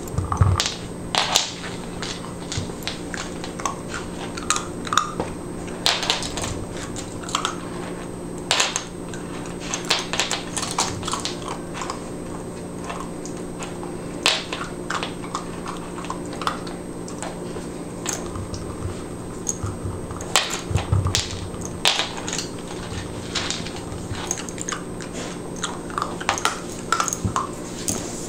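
Standard poodle puppy chewing and mouthing at kibble and a rubber Kong toy, with irregular sharp clicks and knocks as the toy bumps on the hardwood floor.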